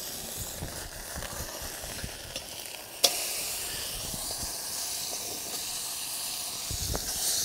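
Steak searing in smoking-hot oil in a wok over a campfire: a steady sizzle. There is one sharp click about three seconds in, after which the sizzle is brighter.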